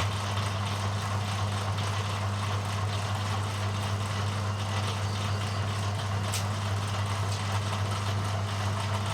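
Bamboo strip-thinning machine running with a steady, even hum, with one faint tick about six seconds in.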